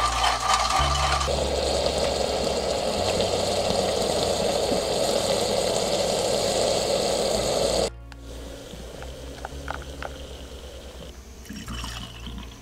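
Stovetop espresso maker hissing steadily with steam as espresso is forced out into a metal pitcher, cutting off suddenly about eight seconds in. A quieter pour of milk follows near the end.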